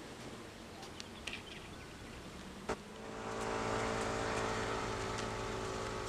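A vehicle engine idling with a steady hum, setting in about three seconds in after a sharp click.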